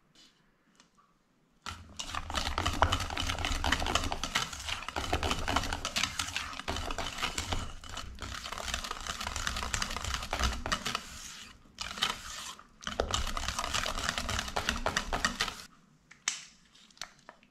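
Wire balloon whisk beating thick cream cheese batter in a stainless steel bowl: fast, continuous ticking and scraping of the wires against the metal. It breaks off briefly twice about two-thirds of the way through and stops near the end.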